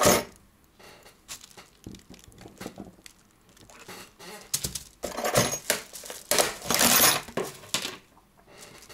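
Steel mainspring clamps clinking and rattling together in a plastic tub as they are handled and sorted through, with scattered light clicks and a longer, louder clatter in the second half.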